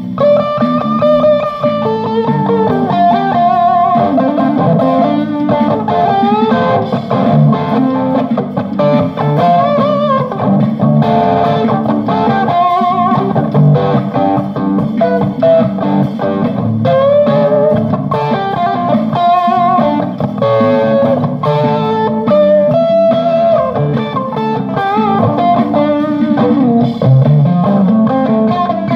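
Electric guitar jam: melodic lead lines with bent, sliding notes played over a steady lower chordal accompaniment, continuous throughout.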